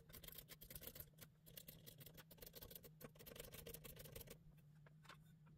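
Faint, rapid, irregular clicking of a Phase Linear 2000 preamp's switches being worked back and forth by hand to spread freshly sprayed DeoxIT contact cleaner onto the contacts. The clicking stops about four seconds in.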